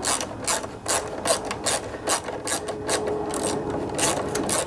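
Ratchet wrench clicking through quick back-and-forth strokes, about three a second, running a bolt down into a square nut.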